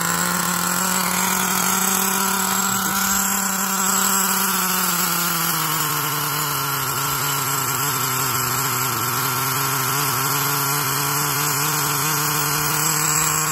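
Small glow-fuel nitro engine of a 1/8-scale RC truck idling steadily. Its pitch sags a little about five seconds in and holds there.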